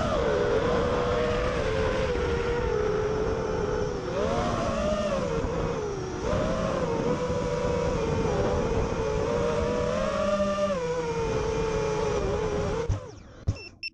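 FPV racing drone's brushless motors whining, the pitch rising and falling repeatedly as the throttle changes. The motors cut off suddenly near the end, followed by a couple of short high beeps.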